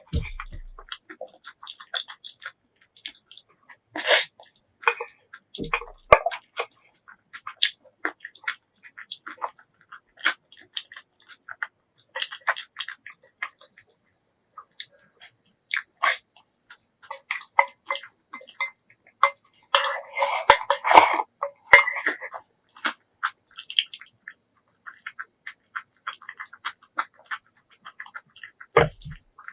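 Close-miked chewing and wet mouth sounds of a person eating, with many short clicks and smacks, and a denser, louder stretch about two-thirds of the way through.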